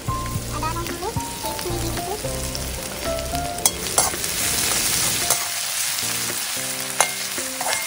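Ginger-garlic paste dropped into hot oil with frying onions in a metal wok, sizzling, then stirred with a metal spatula that clicks and scrapes against the pan. The sizzle grows louder about halfway through as the paste is stirred in.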